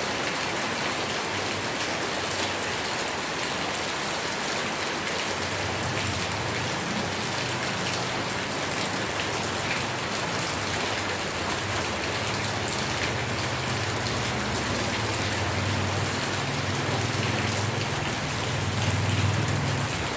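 Rain falling steadily, a dense hiss of drops landing on a surface. A low rumble comes in about five seconds in and grows stronger toward the end.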